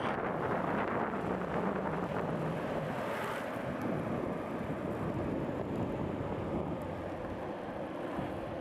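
Steady rushing roar of longboard wheels rolling and sliding on rough asphalt, mixed with wind buffeting the microphone, easing off slightly near the end.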